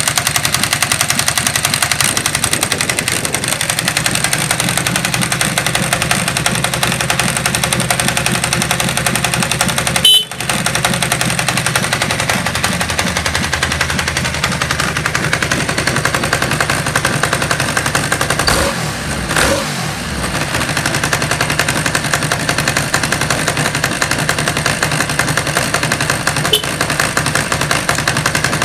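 Ducati Monster S4R Testastretta's L-twin engine idling steadily after a starter-motor start, with a loud, rapid clatter; the seller rates its mechanical noise as moderate.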